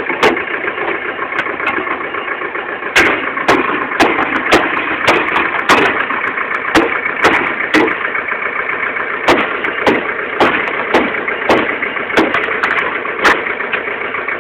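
Tractor engine idling steadily, with sharp knocks or snips breaking in irregularly, roughly one or two a second.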